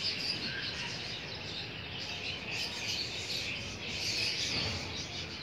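Many small birds chirping at once in a continuous, overlapping high-pitched chatter.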